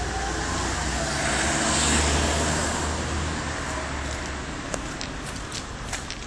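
A car driving past, its engine and tyre noise swelling to a peak about two seconds in and then fading away, with a few light clicks near the end.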